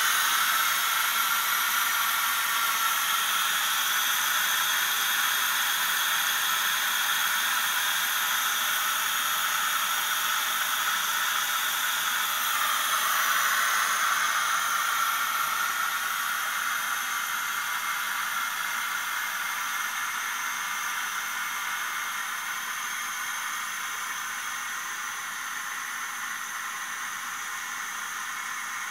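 Cuchen electric pressure rice cooker venting steam through the valve on its lid: a steady hiss that slowly fades, in the last minutes of the cooking cycle.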